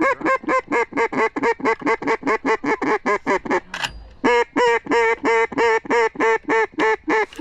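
A duck call blown in a long, fast run of evenly spaced quacks, about four a second. The run breaks off briefly about four seconds in, then picks up again.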